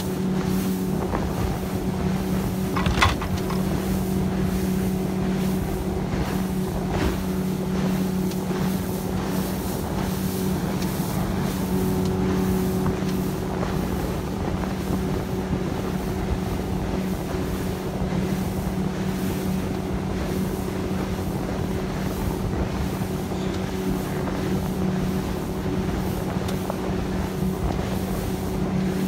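Boat engine running at a steady cruising speed, with a constant low hum and the rush of wind and water as the hull moves. A brief sharp knock comes about three seconds in.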